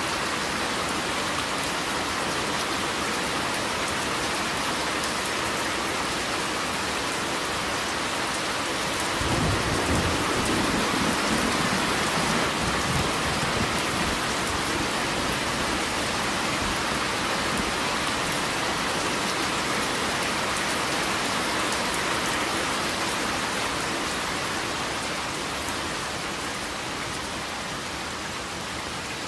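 Steady rain falling, with a low roll of thunder coming in about nine seconds in and rumbling off over several seconds.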